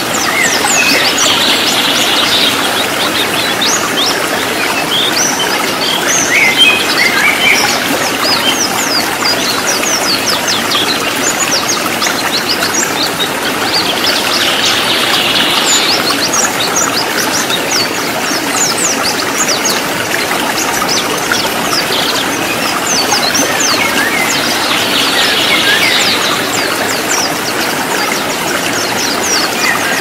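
White-eyes (pleci) singing a fast, dense run of short high chirps and trills, the rapid 'ngalas' song, over the steady rush of a rocky stream. The song swells into brighter bursts a few times.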